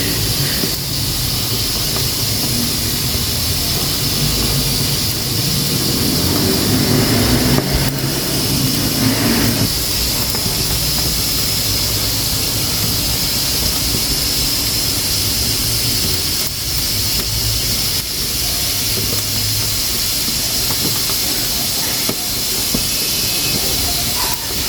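Pressure cooker at pressure, hissing steadily as steam escapes from its valve, over a low rumble that swells for a few seconds partway through, with a few faint clicks.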